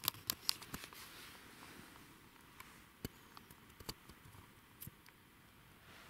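Faint rustling of dry vegetation: scattered small sharp clicks and crackles, several close together in the first second, then sparser, over a faint steady hiss.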